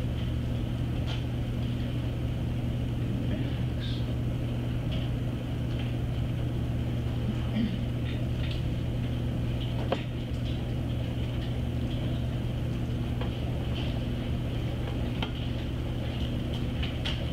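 Steady low room hum with a fainter high whine, and a few faint scattered clicks from typing on a computer keyboard.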